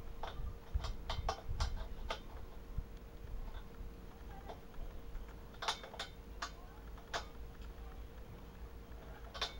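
Sharp metallic clicks of a 12 mm wrench working the nut of the small pressure pipe at an air compressor's pressure regulator. A run of clicks in the first two seconds, another about halfway through, and one more near the end, over a faint steady hum.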